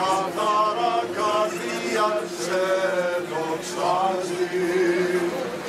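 Greek Orthodox Byzantine chant: voices singing a moving melody over a steady held drone note, which stops near the end.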